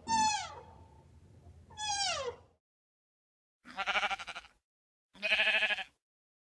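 A cat meowing twice, each meow falling steeply in pitch, then, after a cut to silence, two wavering bleats from a sheep about a second apart.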